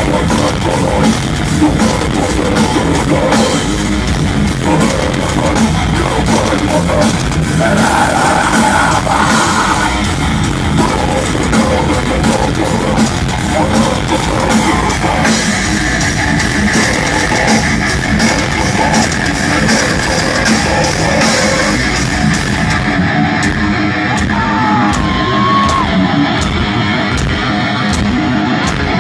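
Loud heavy metal music with electric guitar and drum kit. About three-quarters of the way through, the dense cymbal wash drops away, leaving guitar and evenly spaced hits.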